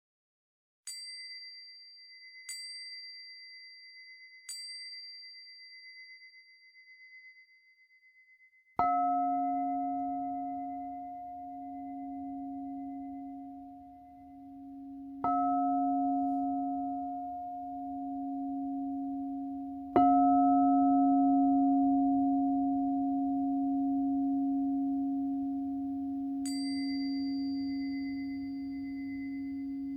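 A high-pitched chime struck three times about two seconds apart, ringing briefly; then a singing bowl struck three times, several seconds apart, each strike leaving a deep, slowly wavering hum that rings on. Near the end the high chime sounds once more over the bowl's ring.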